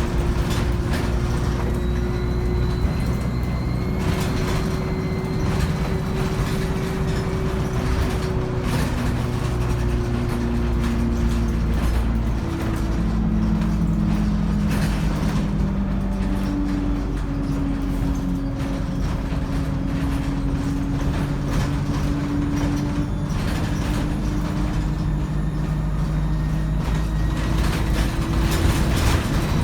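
ADL Enviro 200 bus under way, its diesel engine and three-speed Voith automatic gearbox running with a whine whose pitch slowly falls and rises again as road speed changes, plus a fainter high turbo whine. Scattered rattles and clicks are heard over the drone.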